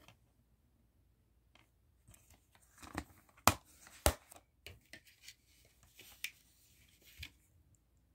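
Plastic DVD case being handled and snapped shut: rustling and scraping, with two sharp clicks about half a second apart midway through.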